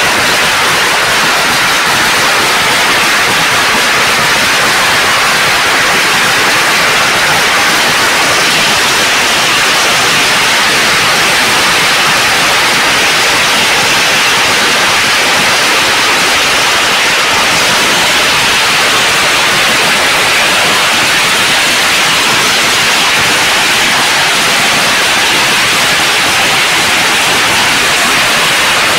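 A long string of firecrackers going off nonstop, the bangs so rapid that they merge into one loud, steady crackling din.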